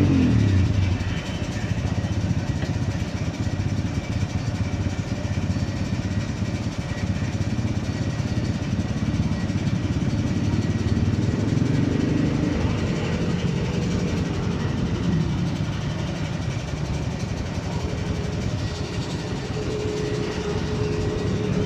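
Motorcycle engine and road traffic making a steady rumble, louder in the first second. A steady tone joins near the end.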